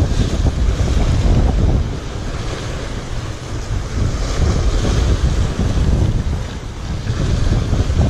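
Wind buffeting the microphone in gusts, over the wash of waves surging against the concrete breakwater blocks.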